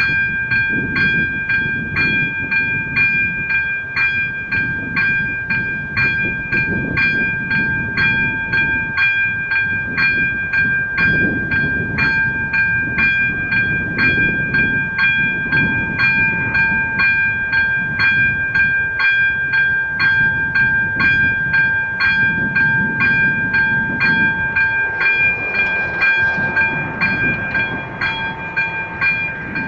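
AŽD ZV-02 electronic level-crossing bell ringing at about two strokes a second, warning that the crossing is closing for a train while the barriers lower. It stops near the end, once the barriers are down.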